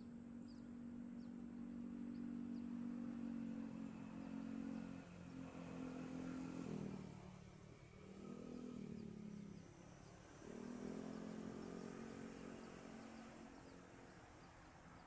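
Small engine running steadily, its pitch dipping and rising again twice around the middle, with a faint high pulsing insect buzz.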